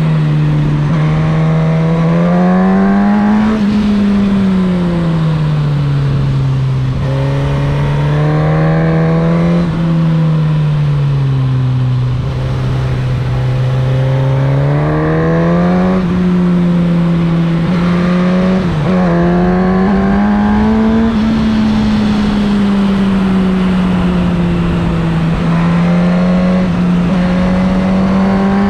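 Suzuki GSX-S1000's inline-four engine pulling and easing off in turn, its pitch rising and falling over and over through a run of bends, with a short break in pitch about nineteen seconds in and a steadier stretch near the end. Wind rush runs under the engine throughout.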